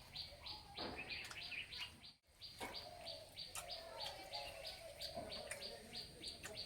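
Birds chirping: a rapid, evenly repeated chirp, about five a second, with other fainter bird calls beneath it. There is a brief dropout about two seconds in.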